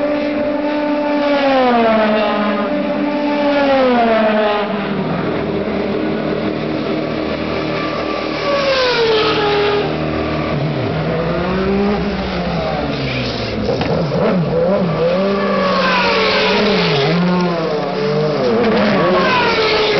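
2010 DTM race cars' V8 engines passing at speed one after another, each engine note falling in pitch as the car goes by. In the second half, a car's engine runs close by, wavering in pitch.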